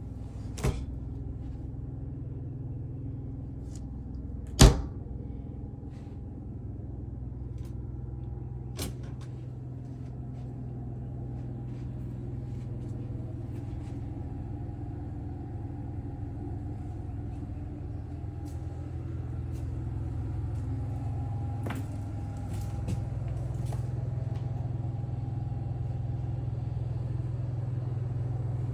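A steady low mechanical hum, a little louder from about two-thirds of the way in, with a few sharp knocks and clicks over it, the loudest a little under five seconds in.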